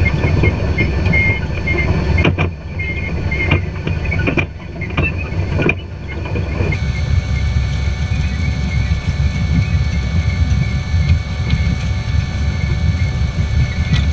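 John Deere 8430 tractor pulling a 1790 planter through a tilled field, heard from the planter: a steady low rumble of engine and running gear. A handful of knocks and rattles come in the first half.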